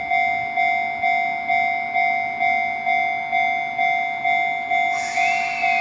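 A warning bell rings steadily, about two strikes a second. About five seconds in, the departing E491 inspection train sounds its whistle, which rises briefly and then slides down in pitch.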